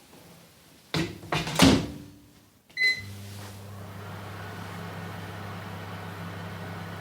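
Microwave oven: a few clunks as the door is shut, a single short keypad beep, then the oven starts running with a steady low electrical hum and fan noise.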